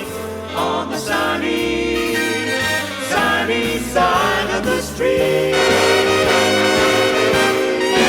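Swing-band music with brass: a moving instrumental line, then the band holds a long sustained chord from about five seconds in.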